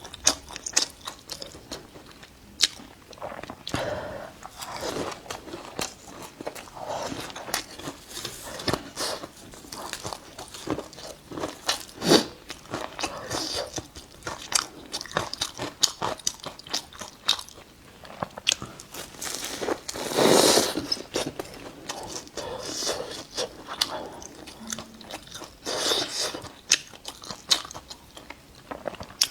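Close-up eating of a fresh-meat mooncake: bites into its flaky pastry crust and chewing, with a steady run of small crunches and crackles and a louder stretch about two-thirds of the way through.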